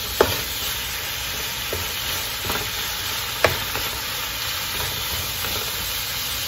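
Shrimp and vegetables sizzling in a hot wok as a wooden spoon stirs them: a steady frying hiss with a few sharp knocks of the spoon against the pan, the loudest about a quarter-second in and about three and a half seconds in.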